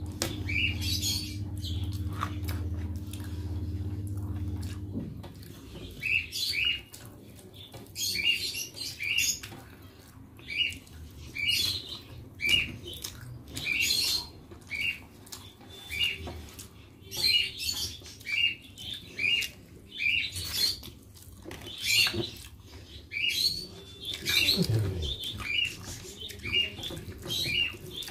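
A person chewing and smacking their lips on a soft mouthful of rice, in short wet clicks about once a second. A low steady hum cuts off about five seconds in.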